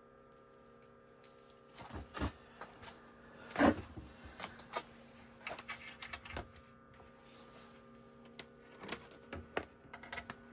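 Scattered clicks and knocks of a coaxial cable being handled and connected to an oscilloscope's front-panel BNC input, the sharpest about three and a half seconds in, over a steady faint hum.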